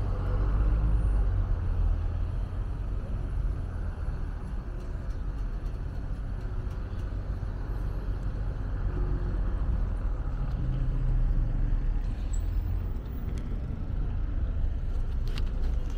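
City road traffic: vehicles passing on the street with a steady low rumble that swells and eases as they go by.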